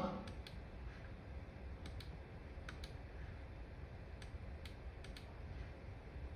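Faint low background rumble with about ten light clicks scattered irregularly through it.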